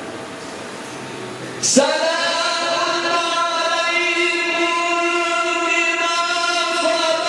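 A male Quran reciter's voice sets in sharply about two seconds in and holds one long, steady melodic note in tajweed recitation. Before it there is only a noisy hiss.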